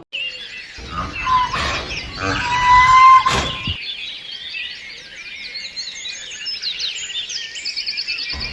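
Songbirds chirping and twittering in quick, high-pitched calls, with a louder, lower sound holding a couple of whistled tones in the first few seconds before only the chirping is left.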